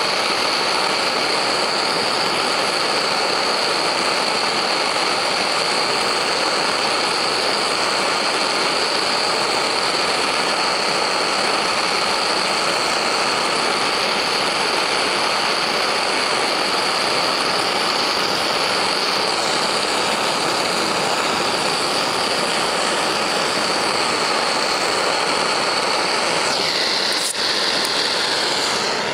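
Gas torch flame burning with a steady hiss, heating the neck of a brass rifle case to anneal it. The sound changes briefly near the end.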